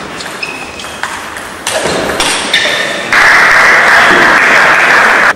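Table tennis ball pinging off bats and table in a rally, then loud crowd applause from about three seconds in that cuts off suddenly near the end.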